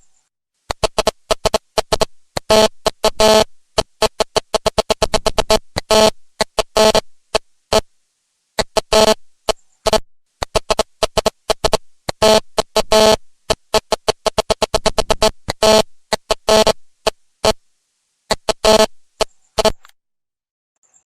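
Fax machine printing: its paper feed steps in rapid trains of short pulses with a steady pitched whine, in bursts of a second or two separated by brief pauses.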